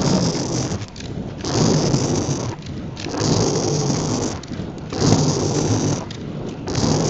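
Inline skate wheels rolling over coarse asphalt: a gritty rolling rumble that swells with each skating stride, about once every one and a half to two seconds.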